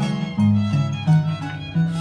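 Live orquesta music from Huancayo, with a violin carrying the melody over a bass line that steps from note to note.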